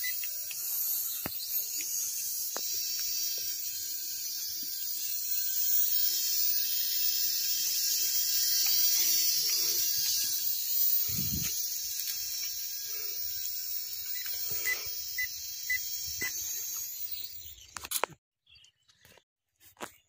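Small toy quadcopter's propellers and motors whining high and steady as it hovers, with a dull thump about halfway through; the sound cuts off abruptly near the end.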